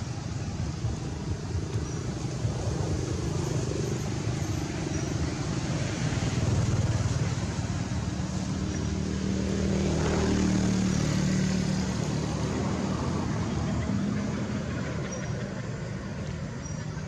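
A motor vehicle's engine running, a steady low rumble whose hum swells about ten seconds in and then fades.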